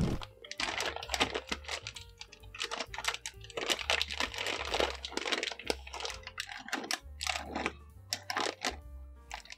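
A plastic raisin bag crinkling and crackling in irregular bursts as it is handled, over background music.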